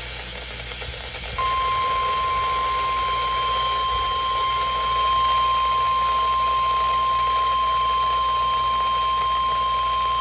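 NOAA Weather Radio warning alarm tone: a single steady 1050 Hz tone that comes in about a second and a half in and holds for about nine seconds, sounding the alarm for the weekly test. It plays over constant radio hiss.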